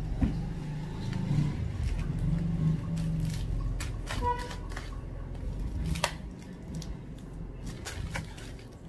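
A sealed cardboard parcel being handled and turned over, with scattered small clicks and crinkles of its packaging and one sharper click about six seconds in, over a low steady background rumble.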